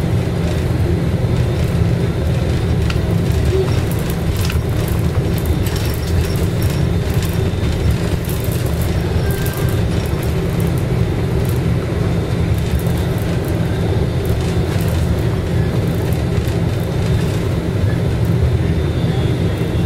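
Steady low engine and road rumble heard from inside a moving bus's cabin, with a few brief clicks and rattles.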